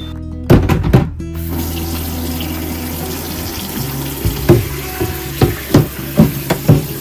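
A few knocks, then a tap starts running into a sink a little over a second in, with several sharp knocks and clatter of items being handled under the running water.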